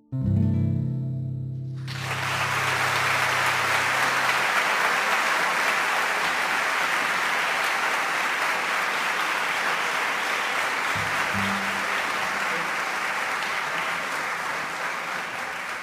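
The folk ensemble's last chord on plucked strings rings out and dies away. About two seconds in, audience applause takes over and keeps on steadily, thinning a little near the end.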